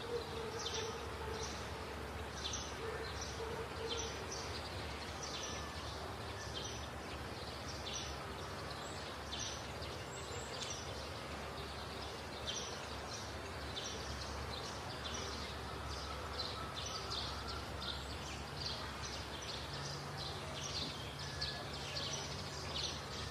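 Quiet outdoor background noise with short, high chirps repeating about once or twice a second from a small bird.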